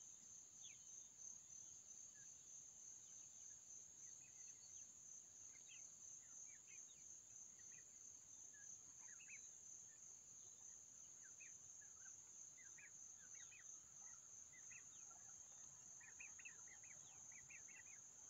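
Faint, steady high insect trill, with short high peeps from young turkeys scattered throughout and coming thicker near the end.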